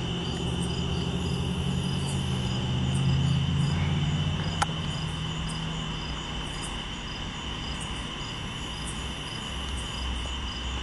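Crickets chirping steadily in the dark, over the low rumble of a long freight train rolling slowly past, which fades about halfway through. A single sharp click a little before the middle.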